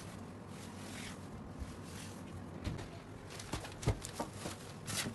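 Saree fabric rustling and swishing as hands unfold and spread it on a wooden table, with a few short knocks and taps in the second half, the loudest about four seconds in.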